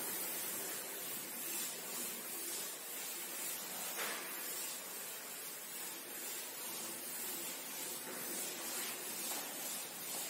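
Chalkboard duster rubbing across a chalkboard in repeated wiping strokes, a soft hiss that swells and fades with each stroke.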